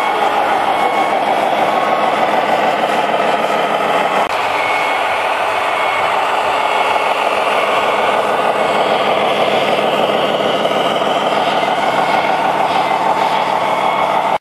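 Simulated diesel truck engine sound from a radio-controlled model truck's sound module, running steadily.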